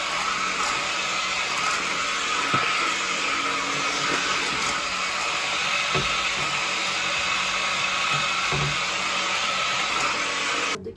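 Vacuum cleaner motor running with a steady whooshing hum, switched off suddenly near the end.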